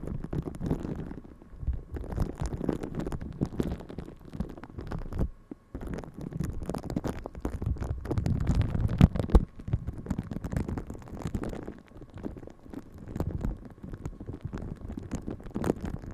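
Close-miked ASMR scratching and rubbing, irregular and heavy in the low end, with short clicks throughout.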